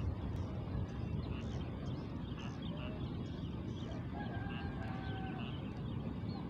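Outdoor ambience: steady low wind rumble on the microphone, with faint short bird chirps scattered through it and a faint held call about four to five seconds in.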